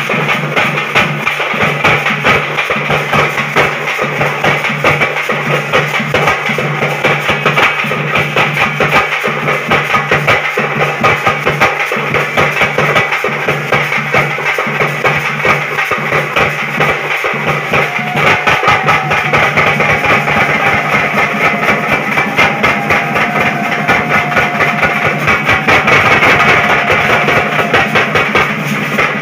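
Loud drumming with rapid, dense strokes over a steady low drone. About two-thirds of the way through, a higher melody of held notes joins in.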